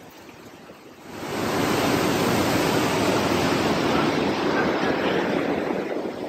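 Loud, steady rush of fast-flowing water, rising sharply about a second in and easing slightly near the end.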